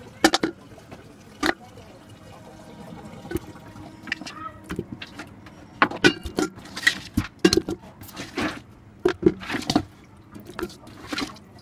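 Raw beef trotter and shank pieces knocking and clattering against a steel pot as they are handled wet, in a string of irregular sharp knocks.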